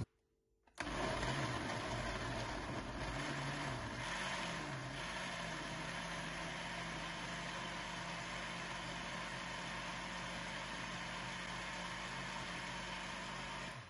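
Electric countertop blender running, puréeing tomatoes, tomato paste, water and spices into a sauce. The motor starts about a second in, its pitch wavers briefly a few seconds later and then holds steady, and it stops abruptly just before the end.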